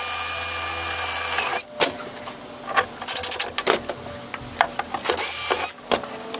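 Cordless drill with a 1/8-inch bit drilling a pilot hole through a plastic golf cart dash into the windshield framing. It runs steadily for about a second and a half and stops abruptly. Clicks and knocks follow, and the drill runs again briefly about five seconds in.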